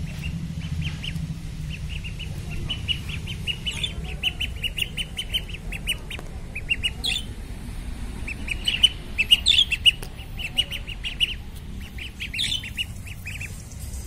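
White ducklings peeping: long runs of short, high peeps several to the second, broken by a few louder rising calls.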